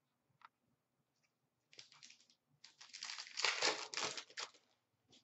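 Trading cards being handled and thumbed through by hand: papery crinkling and rustling that starts in short bits a little under two seconds in and is loudest for a second or two near the middle.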